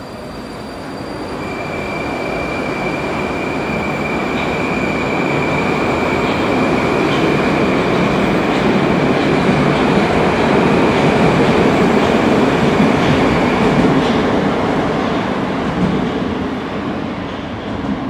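Moscow Metro 81-765.4 "Moskva 2019" train running on the track. The rumble and rush build over the first ten seconds or so, then ease off near the end. A steady high whine runs through most of it.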